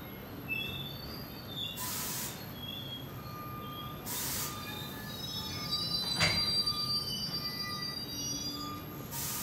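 NJ Transit multilevel coaches rolling slowly past on the rails, the wheels squealing on and off over a steady rumble. There are three short bursts of hiss and a sharp clank about six seconds in.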